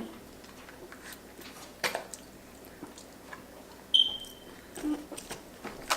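Scattered soft clicks and rustles of eating and handling food and packaging at a table, with a short, high ringing tone about four seconds in that fades away within a second.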